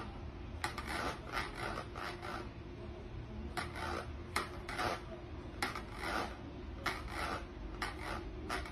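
A cat sitting in a plastic bowl makes repeated short rasping scrapes against it, irregular, about one or two a second, with a faint steady hum behind.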